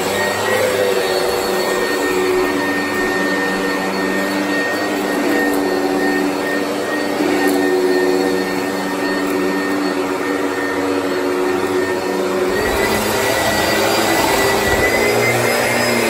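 Oreck XL upright vacuum cleaner running steadily with a constant motor whine as it is pushed over carpet. Its sound changes about twelve seconds in, as the head comes onto hard tile floor.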